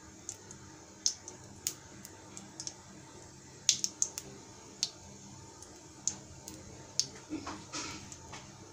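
Kitchen sounds: scattered, irregular sharp clicks and light knocks over a faint steady hiss, with a short scraping clatter about seven and a half seconds in.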